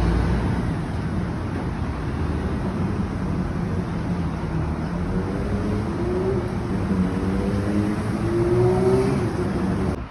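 Street traffic rumble with a small car's engine accelerating past. Its pitch rises several times in steps over the second half.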